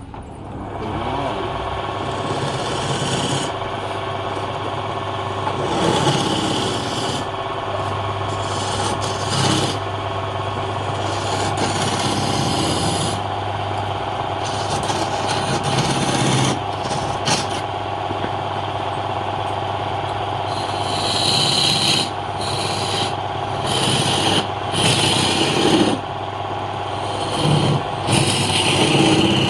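Wood lathe motor running steadily while a cutting tool scrapes the spinning wood in repeated passes, each pass a hissy rasp over the hum, coming thicker and louder near the end.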